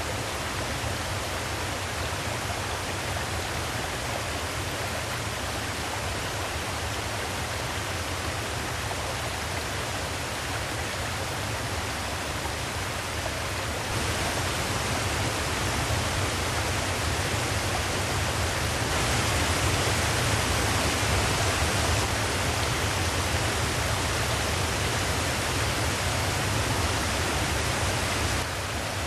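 Mountain stream rushing over rocky cascades and small waterfalls, a steady rush that grows louder from about halfway through and drops back just before the end.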